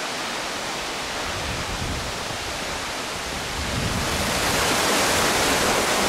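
Cachoeira do Avencal waterfall's falling water in heavy flow: a steady rush that grows louder about four seconds in.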